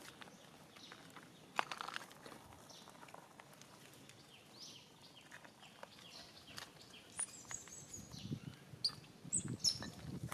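Faint outdoor ambience of scattered rustles and clicks, with a few short high-pitched animal chirps and squeaks in the last few seconds.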